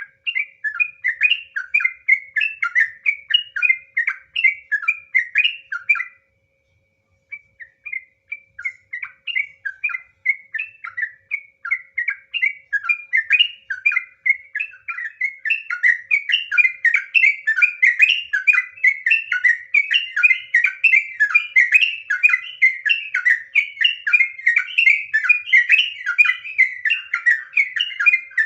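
Yellow-vented bulbul (trucukan) singing a fast, continuous run of short chirping notes. The song breaks off for about a second some six seconds in, then resumes and grows denser and louder from about halfway.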